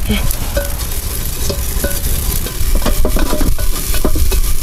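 Cañihua grains hissing and rustling on the floor of a hot clay toasting pot as they are stirred with a cloth-tipped stick, with a run of quick clicks about three seconds in.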